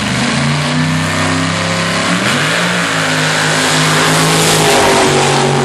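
Drag-racing car's engine running hard under acceleration. Its pitch steps up near the start and again about two seconds in, with a loud rushing noise that builds to a peak about four and a half seconds in.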